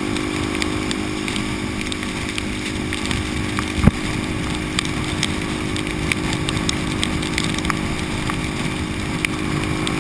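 Supermoto motorcycle engine running steadily at highway cruising speed, under a constant rush of wind and rain. Scattered sharp ticks of raindrops striking the camera, with one louder knock about four seconds in.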